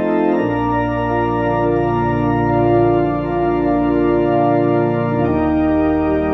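Church organ playing a hymn in long held chords, the harmony moving to a new chord about half a second in and again about five seconds in.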